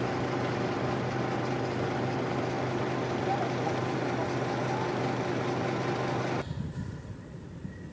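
A vehicle engine running at a steady hum under a noisy outdoor wash of traffic and people's voices. The sound cuts off suddenly about six and a half seconds in to quieter open-air background.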